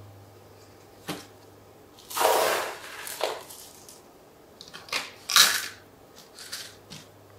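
Handling sounds of potting plant cuttings: a click, then a series of short scraping, rustling bursts, the loudest about five and a half seconds in.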